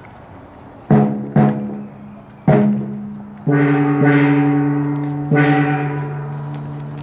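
A large gong struck five times, each stroke ringing and slowly fading: three strokes in quick succession about a second in, then two more that ring on longer.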